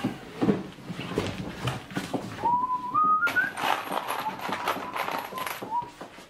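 Knocks and clicks from wooden organ windchest parts and screws being handled. From about two and a half seconds in, someone whistles a few notes that step up in pitch and then hold one note until near the end.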